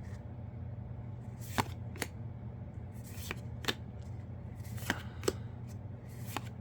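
Trading cards being flipped through by hand, with sharp flicks of card stock coming in pairs about every second and a half, over a steady low hum.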